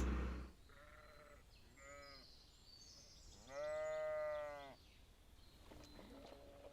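Sheep bleating: two short calls, then a longer, louder bleat about three and a half seconds in, with fainter calls near the end.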